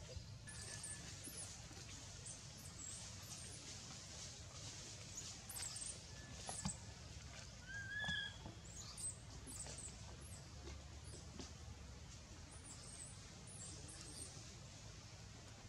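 Quiet outdoor ambience with many short, high-pitched chirps scattered throughout, and one brief squeak from a baby macaque about halfway through.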